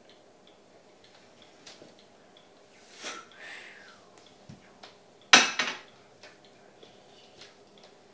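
A person blowing hard over someone's hands, twice: a breathy blow about 3 seconds in and a much louder, sharper one a little after 5 seconds, part of a mapacho tobacco blessing. Faint regular ticking runs underneath.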